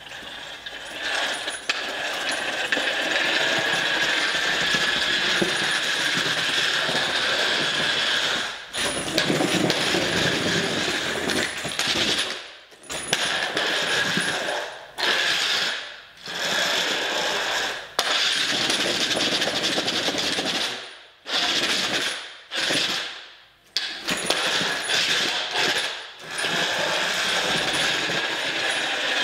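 Small combat robot driving on its wooden wheels over a concrete floor, its electric drive motors and gearing running. The sound cuts out and starts again many times as the robot stops and sets off.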